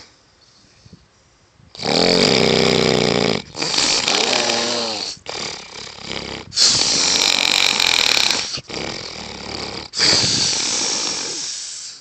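Loud snoring: after about two seconds of quiet, a run of about six noisy breaths in and out, each one to two seconds long, some with a buzzing rattle.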